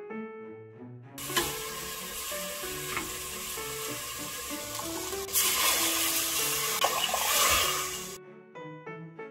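Chopped beef sizzling as it is stir-fried in a stainless steel pot, with a metal ladle scraping and clicking against the pot. The sizzling starts about a second in, grows louder about halfway through, and cuts off shortly before the end.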